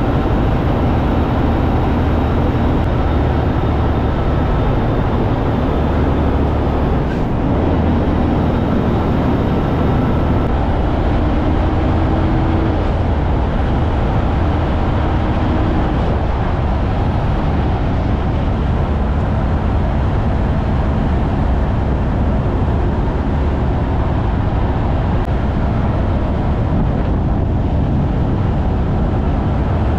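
Kenworth K200 cab-over's Cummins diesel engine running steadily under load as the truck and its double trailer set climb the range, heard from outside the cab window with heavy wind and tyre noise. A faint rising whine comes twice about halfway through.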